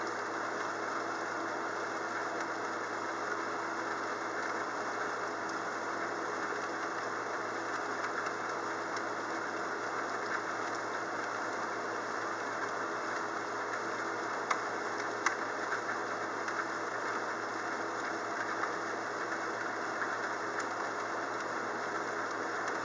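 Steady rain noise from a thunderstorm, with a faint low hum under it and two sharp ticks about two-thirds of the way through.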